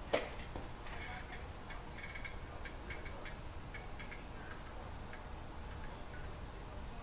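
A sharp knock, then a scatter of light clicks and ticks from the oil pan and its cork gasket being handled and lined up on the engine block.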